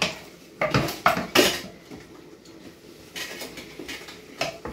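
Kitchen utensils and dishes clattering: several sharp clinks close together in the first second and a half, then a few softer knocks later.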